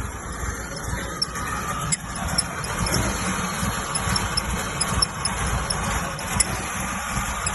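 2G Mitsubishi Eclipse's Chrysler 420A 2.0-litre four-cylinder engine running at an uneven idle, the weird idle that is its fault. There is a low rumble, faint regular ticks, and a higher rushing noise that comes in about a second in.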